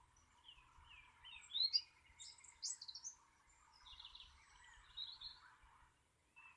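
Faint birdsong: quick chirps and short rising whistled notes repeated through the whole stretch, over a faint steady background noise.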